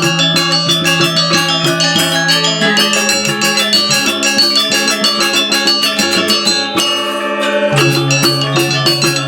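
Balinese gamelan music: bronze metallophones playing rapid, dense struck figures with ringing notes over a sustained low tone that changes pitch twice.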